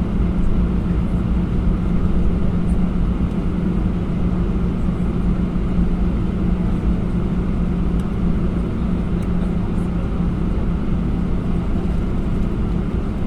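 Airbus A321 cabin noise from a rear window seat while taxiing: the CFM56 jet engines at low thrust give a steady drone and rumble with a constant low hum.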